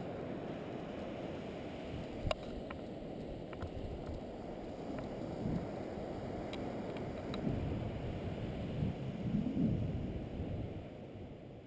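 Wind buffeting the pilot's camera microphone as a paraglider comes in low and lands on the beach, a steady rumbling rush. A few sharp clicks are heard, the loudest about two seconds in.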